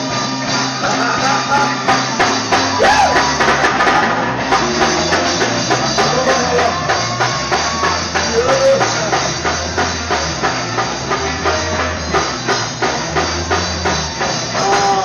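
Live gospel band with drum kit and electric guitar playing an upbeat song with a steady driving beat, about two beats a second.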